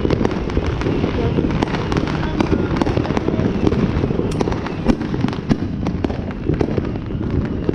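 Fireworks going off all around: a dense, continuous crackle of many sharp pops and bangs with no pause, aerial bursts and firecrackers overlapping.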